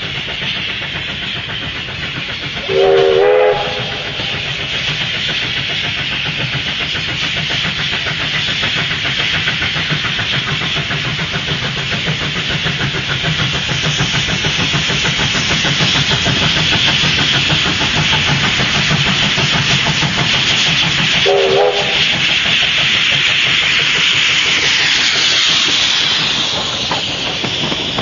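Steam locomotive working hard up a grade with a passenger train: fast, even exhaust beats over steam hiss, growing louder as it approaches. A short whistle blast sounds about three seconds in and a shorter one about twenty-one seconds in, and the carriages roll past near the end.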